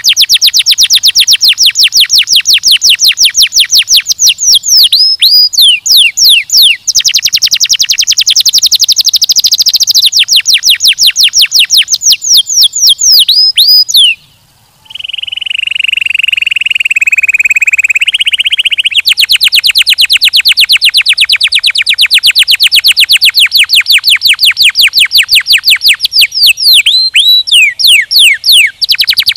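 Domestic canary singing: long runs of very fast repeated trill notes, broken a few times by slower falling notes. About halfway through there is a brief pause, then a lower, steady rolling trill for a few seconds before the fast trills return.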